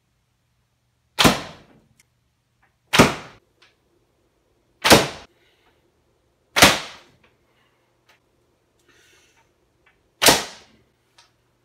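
Shots from an 88 lb Japanese hankyu warbow of bamboo laminated over an ash core: five loud, sharp cracks of the released string and arrow, about two seconds apart with a gap before the last, each dying away within half a second.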